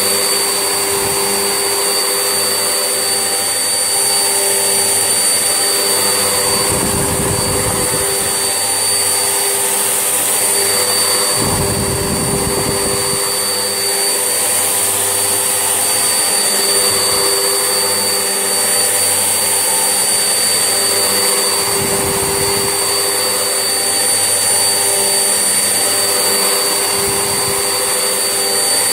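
Vax Essentials vacuum cleaner running steadily with a constant motor whine. A deeper rumble swells briefly four times, about every five seconds.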